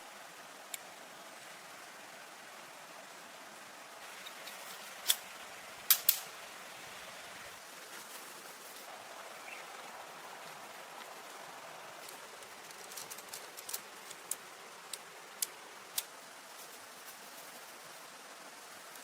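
Steady hiss of flowing water, with sharp short knocks: a few about five to six seconds in, and a scattered run of them later on.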